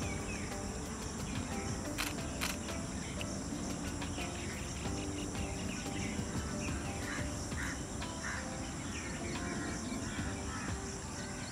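Steady high-pitched insect chirring, with a few short bird chirps and two sharp clicks about two seconds in.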